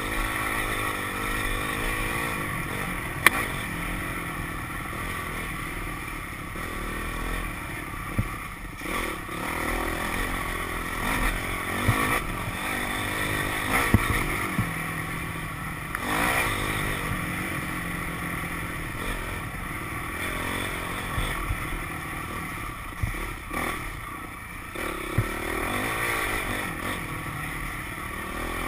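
Dirt bike engine running and revving up and down as the bike rides a rough singletrack trail, with occasional sharp knocks and clatter from the bike going over bumps.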